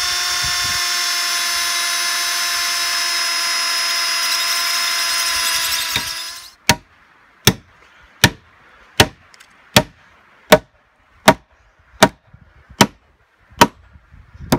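Electric drill with a spade bit boring into a peeled wooden pole, a steady whine that stops about six and a half seconds in. Then a hammer strikes about eleven evenly spaced blows, driving a spike into the pole.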